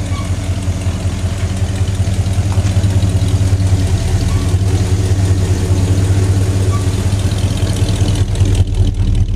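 A Ford pickup's 351 High Output V8 idling steadily through its newly installed exhaust, with a deep, even low rumble at the tailpipe.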